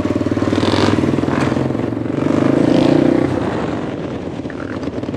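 An engine idling, with the revs and loudness rising a little about two seconds in and easing back after three seconds.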